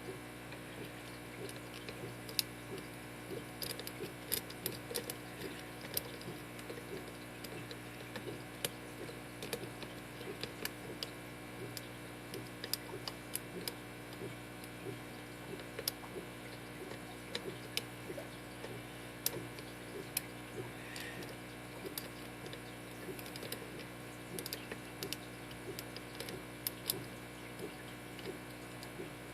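Small irregular metallic clicks and ticks of a lock pick and tension wrench working the pins of a Schlage SC1 five-pin deadbolt cylinder, several a second, over a steady low hum.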